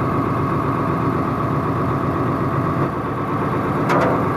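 Truck engine idling steadily, with a short sharp click about four seconds in.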